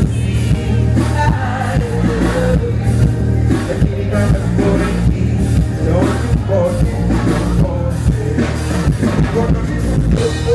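Live band music played loud over a PA, with a heavy, steady bass and a regular beat, and voices singing over it.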